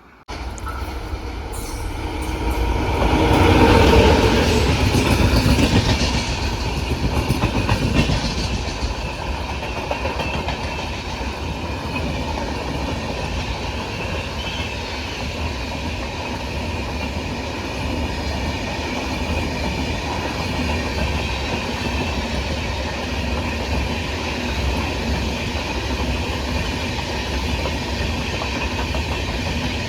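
Train running past on the line, wheels clattering and rumbling over the track. Loudest about four seconds in, then a steady rumble as the coaches keep rolling by.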